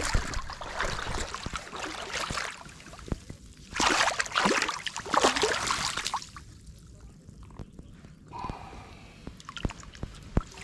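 River water sloshing and splashing around someone wading into the shallows, in two loud spells of a couple of seconds each, then quieter with a few small splashes and clicks.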